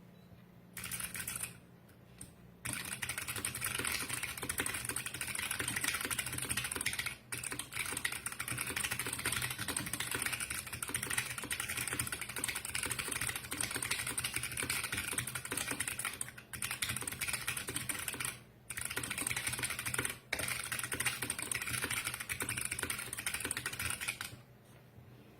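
Fast, continuous typing on a mechanical keyboard with Kailh Box White clicky switches: a dense stream of crisp key clicks, with a few short pauses and a stop near the end.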